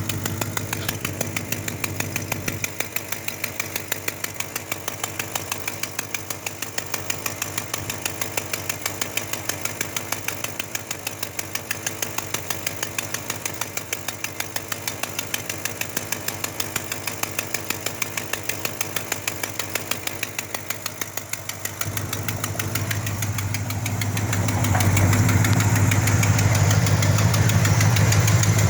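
Engine idling with a rapid, even ticking in time with its firing: the sound of an exhaust leak. It grows louder about two-thirds of the way through and louder again near the end.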